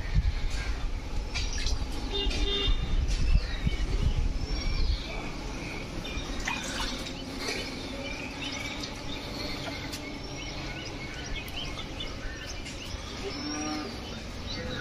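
Many birds chirping in short calls, with a low drawn-out animal call, perhaps cattle lowing, around the middle and again near the end. A heavy low rumble fills the first five seconds.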